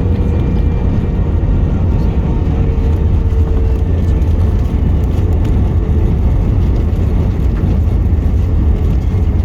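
Steady, loud low rumble inside the cabin of an Airbus A321 airliner, with a faint thin steady tone above it.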